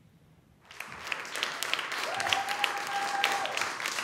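Studio audience applauding, starting under a second in, with a steady high tone held for about a second and a half in the middle.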